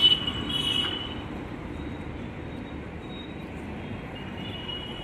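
Steady city street traffic noise, with a vehicle horn honking loudly in the first second and faintly again near the end.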